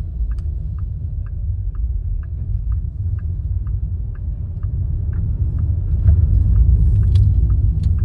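Low road rumble inside a moving car's cabin, with a light, even ticking about three times a second.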